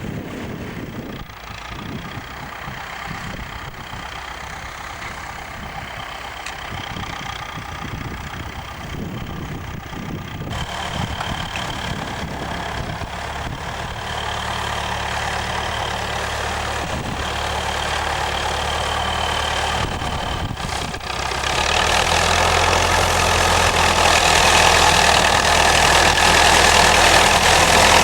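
Massey-Ferguson 65 tractor engine running steadily, growing gradually louder and then markedly louder about three-quarters of the way in.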